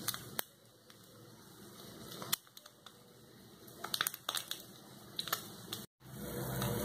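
Quail eggs frying in oil in a multi-cup pan: a faint sizzle with scattered pops and crackles from spattering oil. It cuts out briefly about six seconds in, then comes back as a steadier sizzle.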